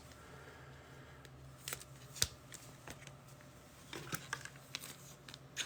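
Trading cards being handled, with faint scattered clicks and light scrapes of card stock, a few of them bunched together around four seconds in.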